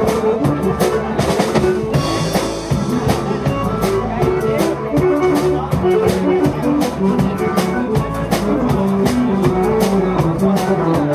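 A band playing an instrumental passage of a xote, with a drum kit keeping a steady beat under melody and bass lines. There is a bright cymbal-like wash about two seconds in.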